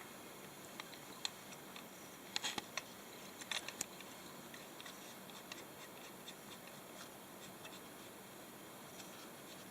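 Faint, scattered small clicks and taps of a new oil burner nozzle being handled and threaded on by hand, with two brief clusters of clicks a couple of seconds in and about a second later, over quiet room tone.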